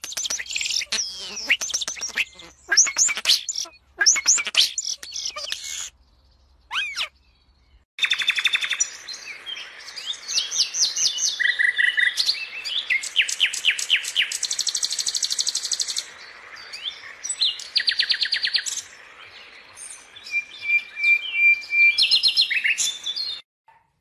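A European starling singing a mix of whistles and chatter. After a short pause about six seconds in, a common nightingale sings varied phrases of fast repeated notes and trills, with a long steady whistle near the end.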